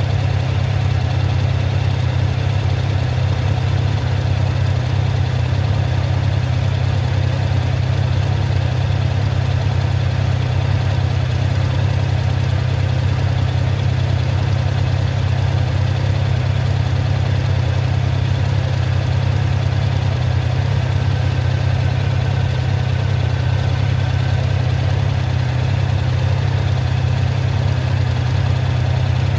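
Motorcycle engine idling steadily while stopped, a constant low hum with no revving.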